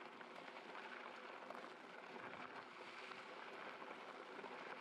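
Faint, steady crackling hiss of fat e-bike tyres rolling over a gravel road.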